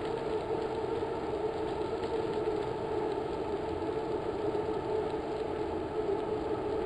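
A motor vehicle's engine running steadily: an even, unchanging drone.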